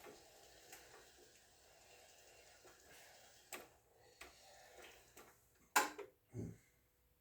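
Power wheelchair making a few irregular clicks and knocks over a faint hum. The loudest click comes near the end, followed by a low thump.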